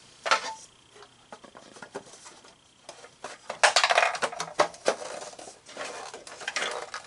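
Hard plastic wall panels of a vintage G.I. Joe Headquarters Command Center playset clicking and clattering as they are handled and fitted together. A sharp click comes just after the start, then a busy run of clatter from about three and a half to five seconds in.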